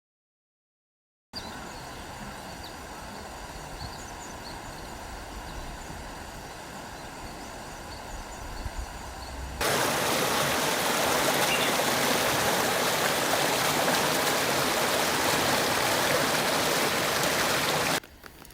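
Mountain river water running over rocks. About a second of silence comes first, then a quieter flow. About ten seconds in, a loud, even rush of water takes over, and it cuts off near the end.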